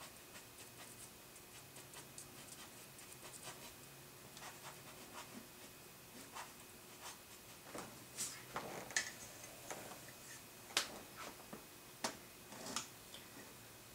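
Faint, intermittent scratching and rubbing of a drawing tool on charcoal-shaded paper, with a few sharper strokes and taps in the second half.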